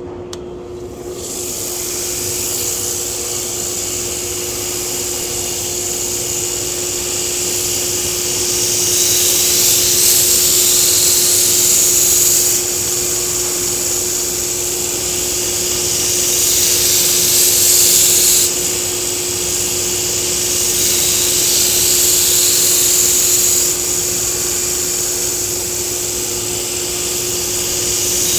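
Belt grinder running with a steady hum while a Takeda nakiri's steel blade is ground on a 120-grit belt. Several passes of a few seconds each add a loud, high hiss as the blade is thinned behind the edge.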